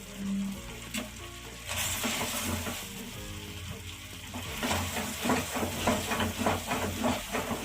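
Macaroni in a cream and cheese sauce sizzling in a pan as it is stirred, with a hiss swelling about two seconds in. In the second half a spoon scrapes the pan in quick repeated strokes as the cheese is mixed in.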